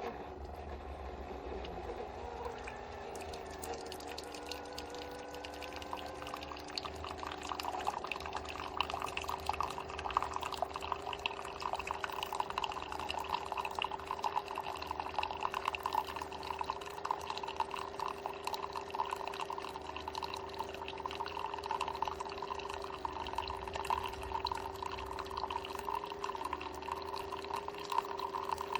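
Keurig K-Duo coffee maker brewing: a steady pump hum with hot coffee streaming and splashing into the vessel below. The splashing builds over the first several seconds, then holds steady.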